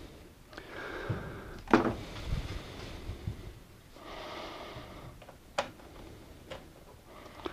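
Hand tools and small plastic parts handled: a few light clicks and clacks of a screwdriver and parts, the sharpest about two seconds in, with soft rustling between.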